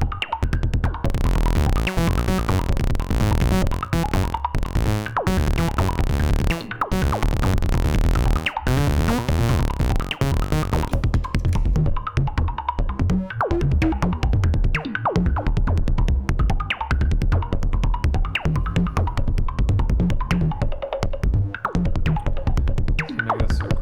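Make Noise Shared System Eurorack modular synthesizer playing a looping electro beat built from oscillators, noise and envelopes: synthesized kick and percussion hits with a deep low bass layer. A bright hiss layer runs over the beat from about a second in and drops away about halfway through.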